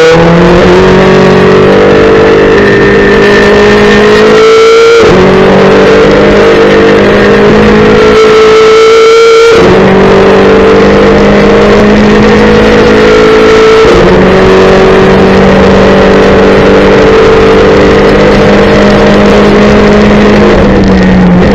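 Race car engine heard from inside the cockpit, pulling hard under full throttle. Its note climbs steadily and drops sharply at three upshifts, about 5, 9.5 and 14 seconds in. The note falls away again near the end.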